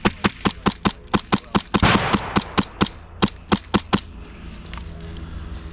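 Airsoft gun firing a rapid string of sharp shots, about five a second, for some four seconds, with a short rush of noise about two seconds in; then the shooting stops.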